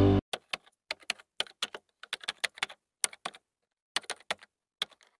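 Music cuts off abruptly just after the start, then a computer-keyboard typing sound effect follows: irregular runs of quick key clicks with short pauses.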